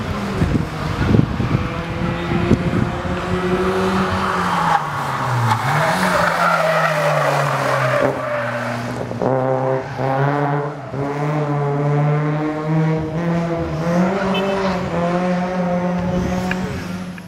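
A car's engine revving hard as the car slides through corners, with its tyres squealing and skidding on the asphalt. The squeal is strongest in the middle.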